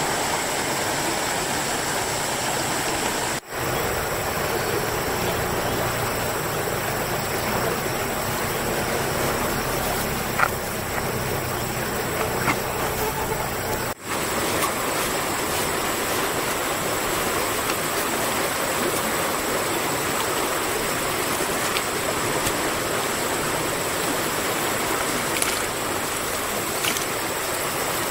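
Steady rush of flowing stream water, with a faint high steady tone over it. The sound cuts out abruptly for an instant twice, about three and a half seconds in and again about fourteen seconds in.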